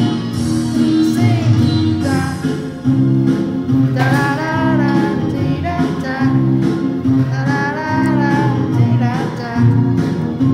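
Pop song playing, with guitar and singing over a steady accompaniment.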